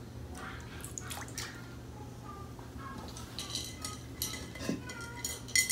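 A toddler's hands splashing and dabbling in a stainless steel dog water bowl with soaked kibble in it, with scattered clinks and taps of kibble and hands against the bowls. There is one sharper clink near the end.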